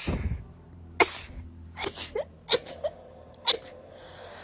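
A quick run of sneezes: about six short, sharp bursts over four seconds, the loudest at the very start.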